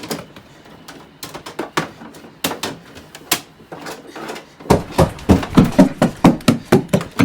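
Scattered knocks and clicks, then from just under five seconds in a fast, loud run of knocking, about three to four knocks a second: urgent pounding on a door.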